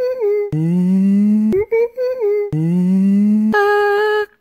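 A series of hummed, pitched notes. Short higher notes alternate with two long low notes that slowly rise in pitch, and a held steady note comes near the end.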